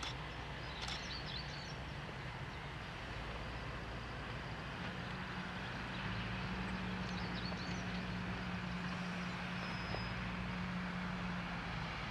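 Diesel engine of a Hyundai 170W-7A wheeled excavator running steadily at a distance; about five seconds in its note steps up and holds under load, dropping back just before the end.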